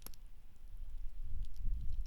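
Wood campfire crackling: one sharp pop at the start and a few faint snaps about a second and a half in, over a low rumble.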